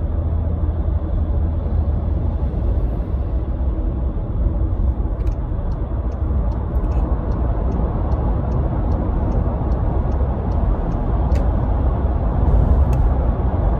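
Road and engine noise inside a car's cabin while driving at speed on a dual carriageway: a steady low rumble that grows a little louder near the end. A faint, regular ticking of about three a second runs through the middle few seconds.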